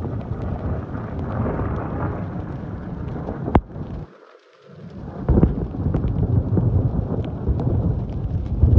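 Thunder rumbling low and continuous, with a sharp click about three and a half seconds in; the sound drops out briefly just after, then a louder rumble rolls in.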